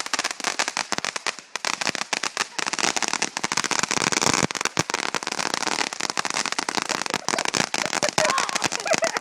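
Fireworks spraying sparks: a steady fizzing hiss thick with rapid crackling pops.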